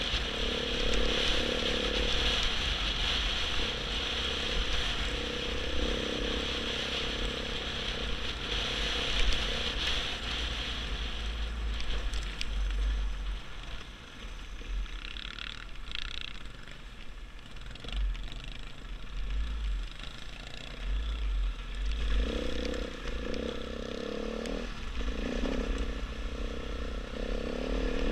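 KTM 500 EXC dirt bike's single-cylinder four-stroke engine running under way on a dirt trail, with wind buffeting the microphone. The engine drops back for a while around the middle, then revs up and down again over the last several seconds.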